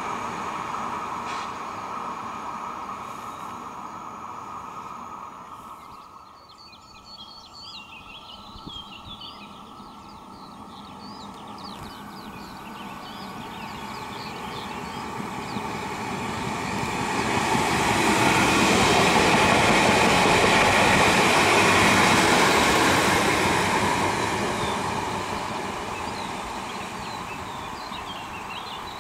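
A Newag Impuls electric multiple unit passing on the line: its running and wheel-on-rail noise swells gradually, peaks about two-thirds of the way through, then fades away. Birds chirp during the quieter stretch before it and again near the end.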